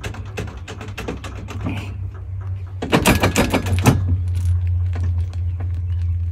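Rapid mechanical clicking for about two seconds over a steady low hum, then a loud rush of noise about three seconds in, after which the low hum grows stronger and steadier.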